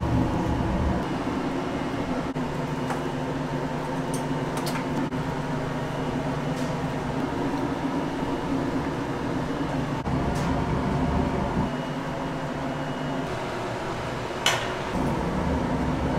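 Steady hum of commercial kitchen machinery running, with a few sharp clicks and clinks of pans and utensils, the loudest near the end.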